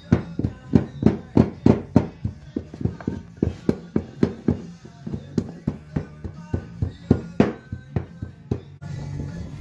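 Wooden rammer stick pounding molding sand into a wooden casting flask: a rapid run of dull thuds, about three a second, which stops near the end. A radio or TV plays faintly underneath.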